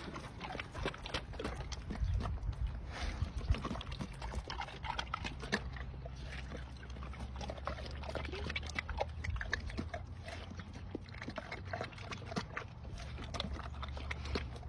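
A bear chewing watermelon: wet, irregular crunching and smacking, with many quick clicks throughout.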